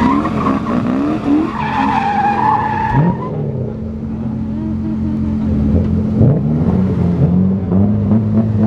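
Tyres squealing from a car drifting, a wavering high squeal that stops about three seconds in. Under it a drift car's engine idles steadily, and voices and some revving follow near the end.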